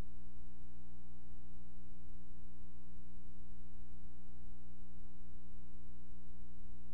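Steady electrical mains hum with a buzz of overtones, constant and unchanging.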